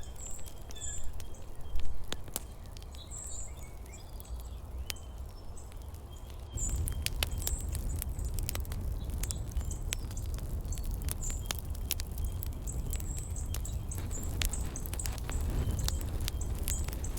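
Birds chirping over a steady low rumble, with many scattered sharp clicks. About six seconds in, the rumble steps up abruptly and stays louder.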